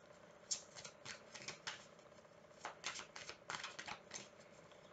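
A tarot deck being shuffled by hand, overhand style: faint quick patters of card edges slapping and sliding against each other, in several short flurries.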